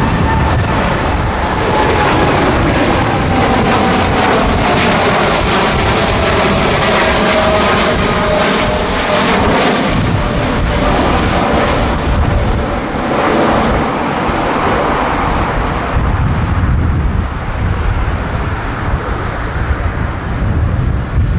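Boeing 787-8 jet engines at takeoff thrust as the airliner climbs overhead and away. The jet noise is loud and steady, with whining tones that slide down in pitch as it recedes.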